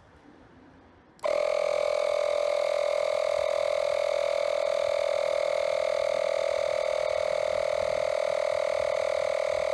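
Makita MP180DZ cordless inflator switching on about a second in and running steadily, a high, even buzz from its compressor, while it pumps up a bicycle tyre.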